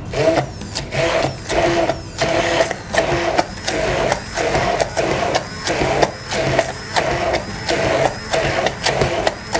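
Hand-held immersion blender running in short pulses, about one a second, its motor stopping and starting. It is puréeing shelled pumpkin seeds with olive oil and water into a thick paste in a tall beaker.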